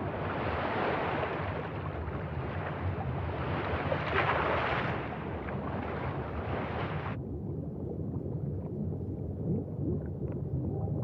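Ocean waves surging and washing, swelling about four seconds in. The wash cuts off suddenly about seven seconds in, leaving a low rumble.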